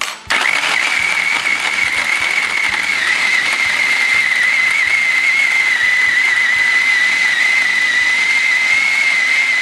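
Hamilton Beach food processor motor running steadily with a high whine, grinding chunks of beef and chorizo into ground meat.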